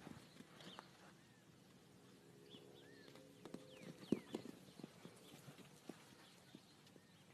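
A foal's hooves knocking and scuffing on dirt as it prances about, with an irregular run of soft hoof strikes and the sharpest knock about four seconds in.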